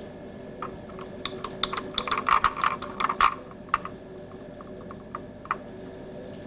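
A quick, irregular run of light clicks and taps, densest in the first half, then a single tap about five and a half seconds in, over a faint steady hum.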